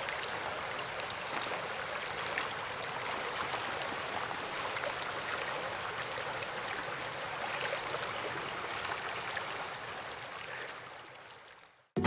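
Shallow creek water flowing and rippling with a steady rush, fading out near the end.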